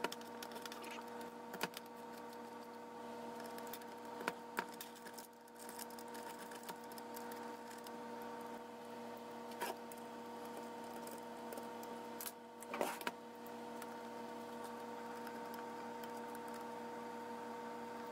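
A wrench and small metal parts working loose the bolts on a heater core's valve and tube fittings: a few scattered sharp clicks and taps, two in quick succession about four seconds in and a short cluster near the end, over a steady low hum.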